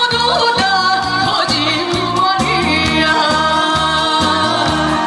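A woman singing a Korean trot song into a microphone over accompaniment with a steady beat, her voice wavering with vibrato on held notes.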